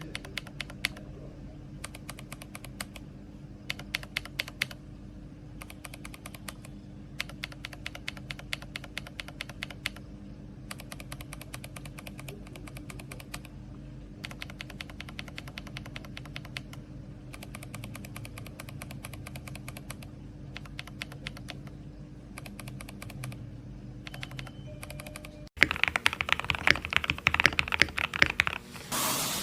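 Typing on a mechanical keyboard fitted with Gazzew Boba U4T tactile switches: bursts of quick keystrokes separated by short pauses. Near the end the sound cuts suddenly to a louder, denser clatter.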